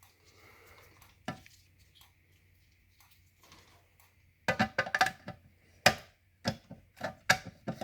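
A faint steady high tone, then from about halfway in a quick run of about ten sharp plastic-and-metal clicks and clacks over some three seconds, the loudest near the middle of the run: hardware being handled.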